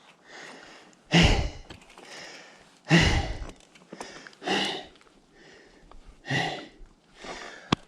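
A person breathing hard and out of breath after exertion: loud exhales about every one and a half seconds with softer inhales between, the strongest breaths blowing onto the microphone.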